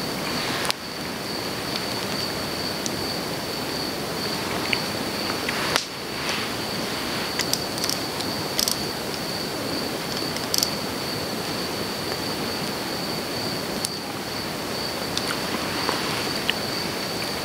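Steady hiss of rain on grass, with a few short knocks and clicks, over a thin, steady high-pitched tone.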